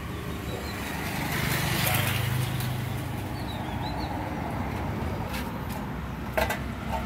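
Road traffic: a motor vehicle's engine running, swelling for a moment about two seconds in as it passes. There is a single sharp knock near the end.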